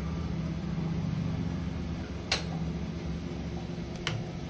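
A steady low hum with two sharp metallic clicks, about two seconds apart: a spoon tapping the steel idli plate as batter is spooned into the moulds.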